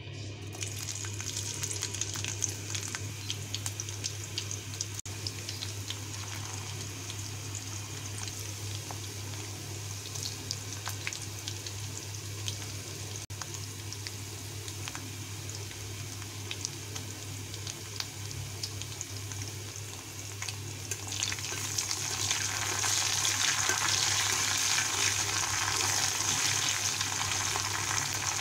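Hot oil sizzling and crackling in a wok as sliced onion and dried red chillies fry, the frying growing louder over the last several seconds while a steel spatula stirs them.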